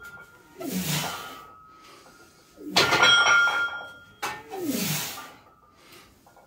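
Forceful breaths of a lifter straining through a heavy barbell deadlift set at 180 kg, three hard blows about two seconds apart, with a faint metallic ring from the loaded barbell's plates.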